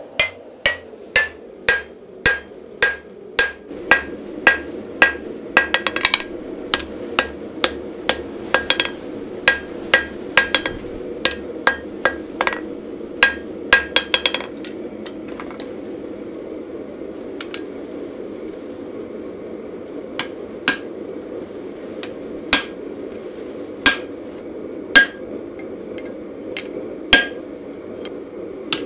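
Hand hammer striking a red-hot steel knife blade on an anvil, each blow with a short ringing note. The blows come quickly for about the first half, then slow to single strikes every second or two, over a steady low hum.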